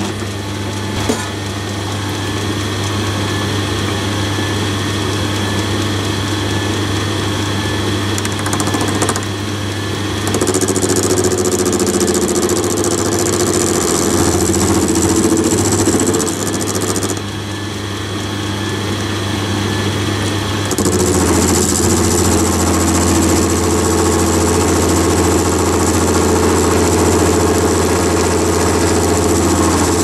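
Myford ML7 lathe running steadily with its chuck spinning, while a carbide turning tool takes light cuts off the hexagon end of a steel cam-lock spindle. A hiss of cutting joins the motor hum about ten seconds in, stops for a few seconds around seventeen seconds, then returns and carries on.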